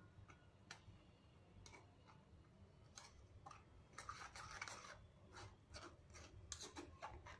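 Metal spoon scraping and pressing blended pomegranate pulp through a steel mesh strainer: faint, irregular scrapes and clicks, with a longer stretch of scraping about four seconds in.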